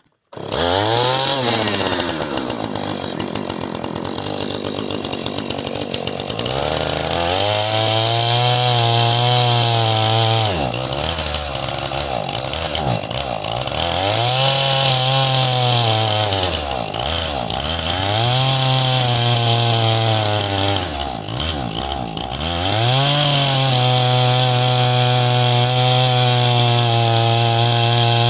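Husqvarna two-stroke chainsaw running, its engine speed rising and sinking several times as it is revved and cutting through a downed limb, then held at high speed for the last few seconds.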